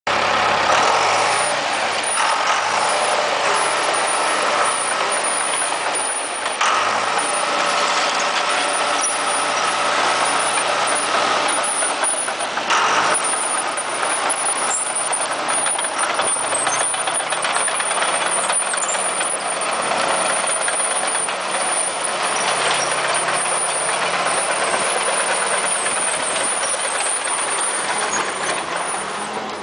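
Heavy machinery running continuously: a loud, even hiss-like noise over a low engine-like hum that shifts in pitch a few times.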